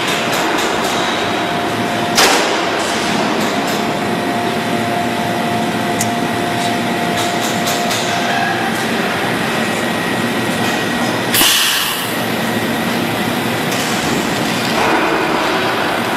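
Automatic kettle-body ring welding machine running with a steady mechanical noise, broken by two short hissing bursts about 2 and 11 seconds in; a faint steady whine sounds for several seconds between them.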